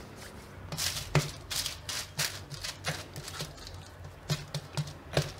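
Thin plastic sheet crinkling and crackling under hands that press and flatten a ball of cashew dough, in irregular crackles starting about a second in.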